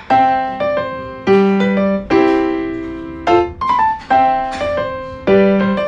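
Solo piano music: chords and single notes struck one after another, each ringing and dying away before the next.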